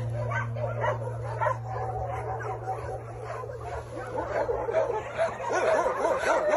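A litter of young puppies squealing and whimpering, many short high cries overlapping and growing busier toward the end. A low held music note sounds underneath and fades out about halfway through.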